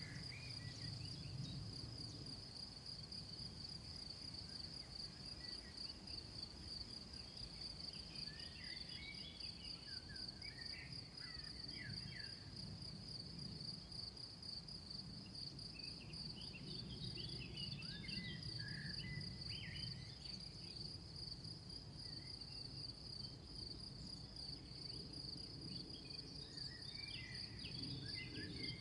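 A steady, high, pulsing trill of insects runs without a break. Birds chirp briefly over it in short scattered phrases three times, with a faint low rumble beneath.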